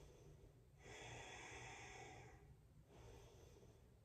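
Faint, slow human breathing: one long breath of about a second and a half starting about a second in, and a weaker one near the end.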